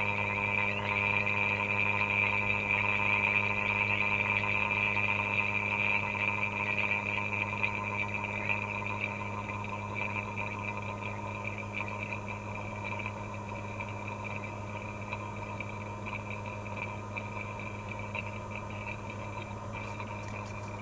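HVAC vacuum pump running steadily while it evacuates an air-conditioning line set and coil, a droning hum with a buzzy upper edge that slowly gets quieter.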